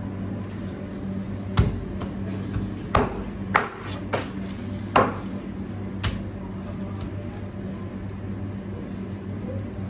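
Knife and pieces of cobia knocking sharply on a plastic cutting board several times during the first six seconds, over a steady low hum.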